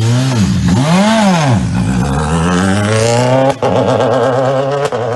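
Toyota Yaris WRC rally car's turbocharged 1.6-litre four-cylinder engine revving up and down twice, then climbing in revs as the car pulls away. A sudden break about three and a half seconds in, after which the engine holds a steadier, wavering note.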